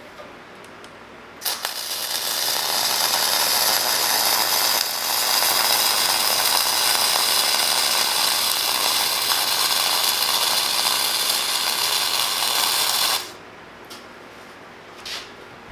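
Millermatic 251 MIG welder running .045 flux-core wire, laying one continuous weld bead on steel plate. The arc runs steadily for about twelve seconds: it starts about a second and a half in and cuts off suddenly near the end.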